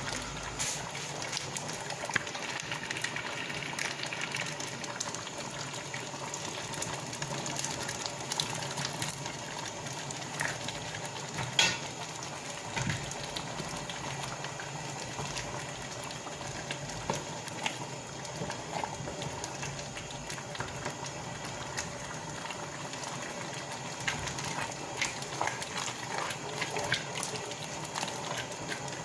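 Pot of plantain and bean potage bubbling on the stove, a steady simmer with scattered small pops.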